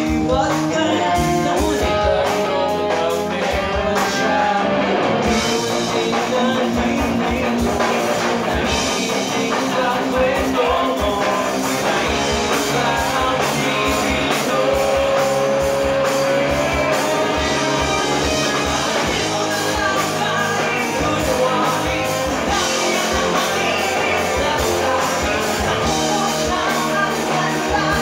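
Live rock band playing: electric guitars, bass and drum kit, with a male singer.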